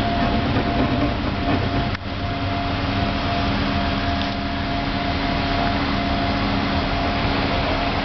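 Steady machine drone with a constant hum of several tones, dipping briefly about two seconds in.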